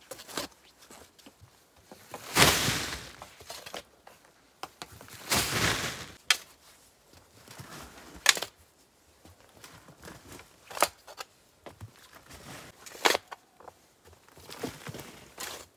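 Metal shovel digging into soil and tossing it: two longer scrapes of the blade into the dirt, about two and five seconds in, then several sharp knocks a couple of seconds apart.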